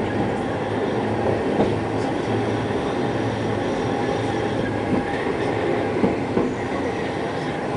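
Hankai Tramway streetcar running along street track, heard from on board: a steady rumble of wheels on rail and running gear under a low hum, with a few light clicks.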